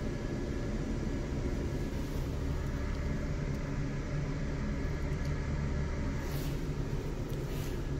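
Mercedes-Benz Sprinter 519 CDI's V6 diesel engine idling steadily at just under 1,000 rpm, heard from inside the cab while the van stands still in drive.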